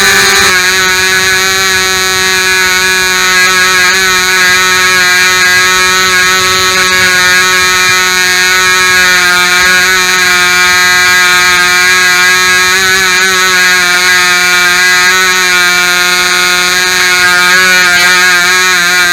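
Royal Spitfire .065 model airplane engine running steadily at high speed during a flight: a loud, constant, high-pitched buzz whose pitch wavers only slightly.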